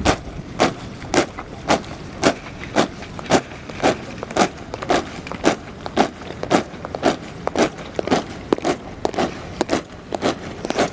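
A body of soldiers marching in step on a hard parade ground, their boots striking together in a steady cadence of about two sharp steps a second.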